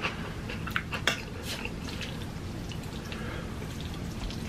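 Wet eating sounds of saucy, sticky ramen noodles being lifted with chopsticks and a fork, with a few sharp wet clicks in the first second and a half, then only faint noise.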